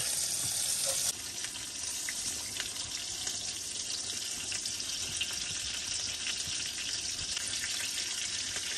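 Burger patties sizzling in hot grease in a cast iron chicken fryer on a propane camp stove: a steady frying crackle with small pops, a little quieter after about a second.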